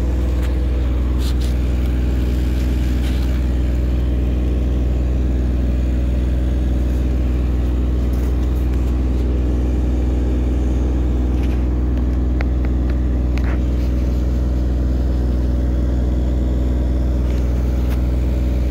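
Engine running steadily at one constant speed, a low hum that never changes, with a few faint clicks over it.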